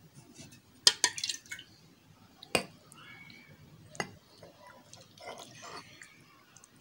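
Thick milk pouring and dripping from a steel pan into glass cups, with a few sharp clinks of the metal pan against the glass rims, about a second, two and a half and four seconds in.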